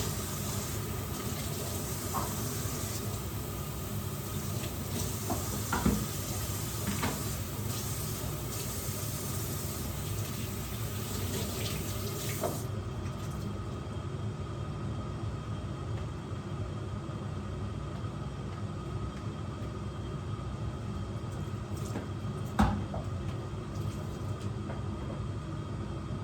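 Water running steadily from a kitchen tap into a sink or vessel, with a knock about six seconds in and another sharper one near the end.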